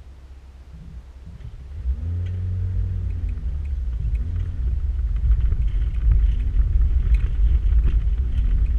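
Vehicle driving across a gravel car park, heard from inside the cabin. A low rumble of engine and tyres comes up about two seconds in and grows, with the engine note rising and dipping a few times and light ticking of stones under the tyres.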